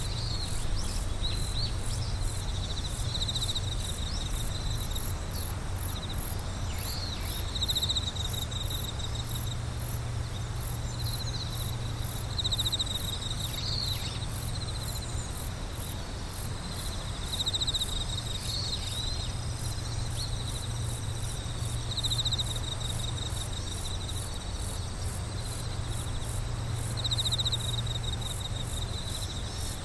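A chorus of night insects calling: a fast, even, high-pitched chirping of about three chirps a second, with shorter trilling calls from other insects every few seconds. A steady low rumble lies underneath.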